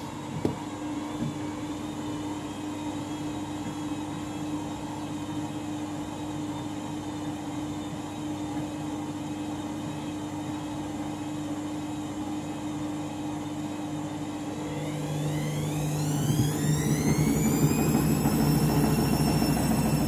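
Front-loading washing machine during an interim spin. The motor hums steadily, with a single knock about half a second in. Near the end the drum speeds up: a whine rises in pitch and then holds high and steady over a louder rumble.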